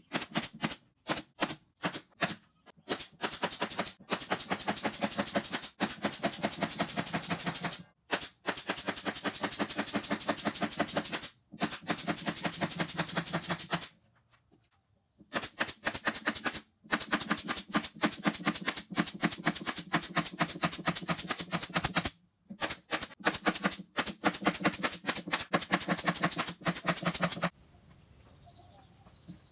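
Power screwdriver or impact driver driving screws into wood in repeated bursts, a fast rattle that starts and stops sharply, some bursts brief and some several seconds long.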